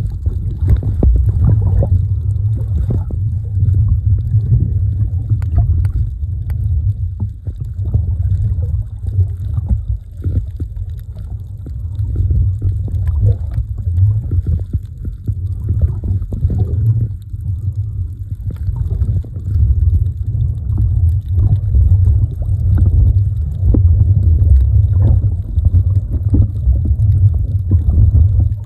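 Muffled underwater rumble and sloshing of water moving around a phone held underwater while snorkeling, with irregular crackles and clicks throughout.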